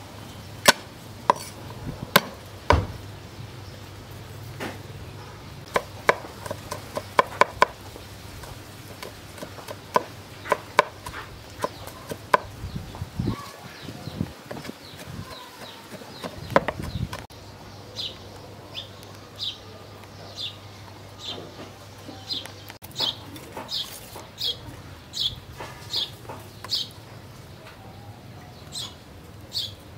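Cleaver knocking on a wooden cutting board as garlic cloves are cut and chopped: sharp, irregular knocks, sometimes in quick runs. After a pause past the middle, a bird chirps over and over in short high notes.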